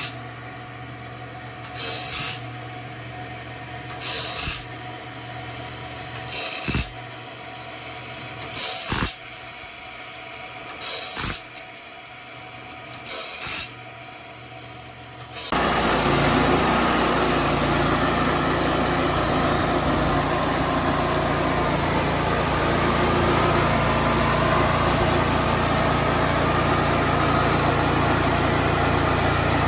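Seven short hissing bursts about two seconds apart. About halfway through, a sawmill's engine and saw start running steadily and suddenly fill the sound.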